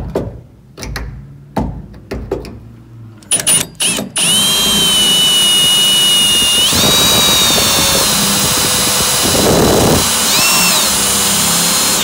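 Cordless drill boring a hole into the steel B-pillar of a 1955 Chevy: a few short starts and stops at first, then about four seconds in a loud, steady high whine that runs on, stepping up in pitch partway through. The bit is a little dull.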